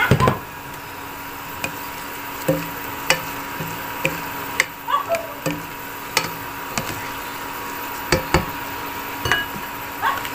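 A spatula stirring chicken intestines in a pot, knocking and scraping against the pot at irregular moments, over a steady hum with a faint constant high tone.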